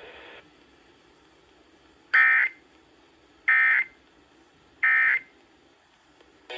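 Three short bursts of Emergency Alert System SAME digital data, each a fast two-tone warble about a third of a second long and about 1.3 seconds apart, heard over a radio: the end-of-message code that closes the alert. Faint radio hiss runs under them, and a louder hiss cuts off about half a second in.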